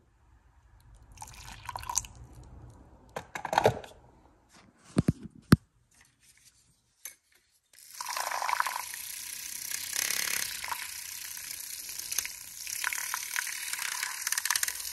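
Hot water poured from a stainless electric kettle into a ceramic mug, with two sharp knocks about five seconds in. Then, from about eight seconds in, a handheld battery milk frother whirs steadily in the mug, whisking green tea powder into the water.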